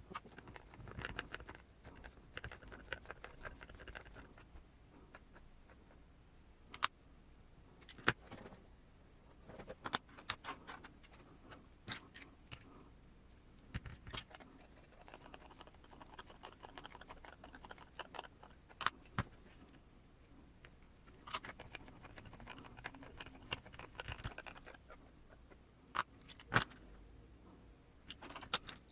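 Small metal and plastic kit parts and hand tools handled on a workbench during RC crawler link assembly: scattered sharp clicks and taps, with spells of soft scraping and rustling.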